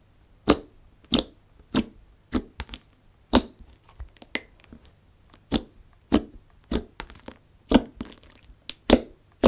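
Glossy glue-based red gummy slime pressed, folded and poked by hand, giving sharp pops and clicks about one to two a second.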